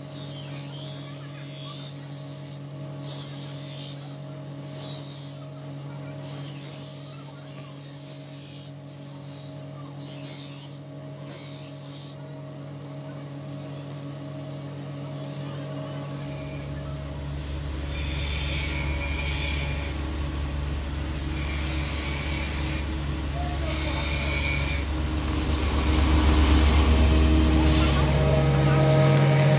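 Steel sword blade being ground against a spinning abrasive wheel: rasping passes with short gaps over the steady hum of the grinder's motor, turning continuous and louder, with a deep rumble, about halfway through.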